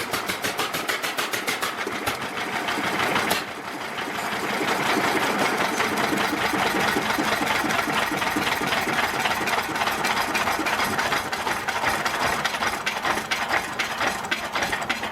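IHC International Harvester Type M 1.5 HP single-cylinder hit-and-miss stationary engine running on test after reassembly, with a fast, even clicking of its valve gear and ignitor. The sound dips and comes back a little over three seconds in.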